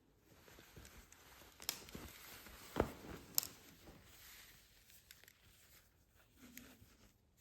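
Faint rustling and crinkling as costume packaging is handled, with scattered small clicks. Three sharper taps come between about one and a half and three and a half seconds in.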